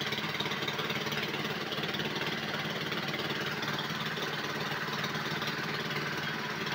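Motor-driven chaff cutter running for green fodder: a steady machine hum with no change in pace.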